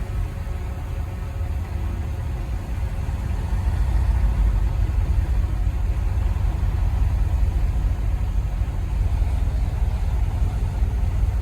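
Engine of heavy earthmoving machinery running steadily with a low rumble, growing a little louder about four seconds in.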